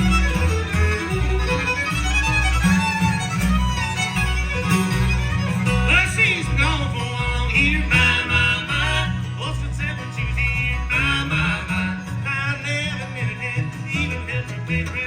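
Live bluegrass band playing: fiddle leading over guitar, with a steady bass pulse underneath.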